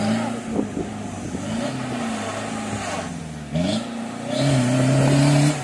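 A small off-road 4x4's engine revving up and down as it tries to climb a steep muddy slope. About three and a half seconds in, the revs rise sharply and are held high, the loudest part, before dropping near the end.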